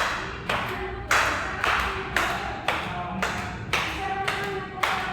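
Footsteps on a staircase, about two steps a second, each a sharp hollow knock with a short ringing tone from the tread.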